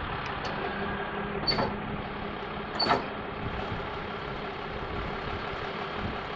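Jerr-Dan MPL-NGS tow truck running while its hydraulic wheel lift is moved by remote control, a steady mechanical hum. Two sharp clanks come about a second and a half and three seconds in.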